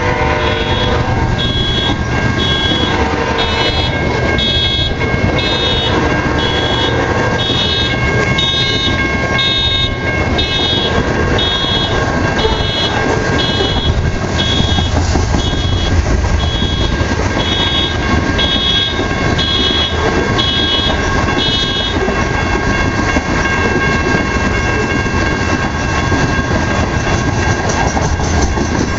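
Car alarm sounding a repeating electronic tone cycle, a little faster than once a second, set off by a passing freight train; it stops about three-quarters of the way through. Under it the grain train's cars rumble and clatter steadily past, and the tail of the locomotive horn fades in the first second.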